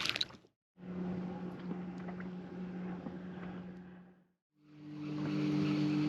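Boat motor running at a steady speed, heard in two short stretches broken by abrupt silent gaps; in the second stretch the pitch rises slightly near the end.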